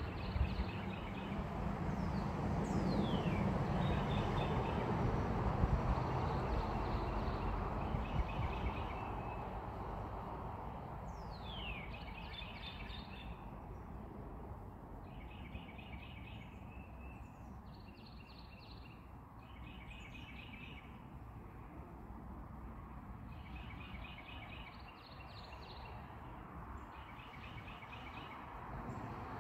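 Songbirds singing in short repeated chirping phrases, with two high whistles sliding steeply downward, over a low rumble that eases after about ten seconds.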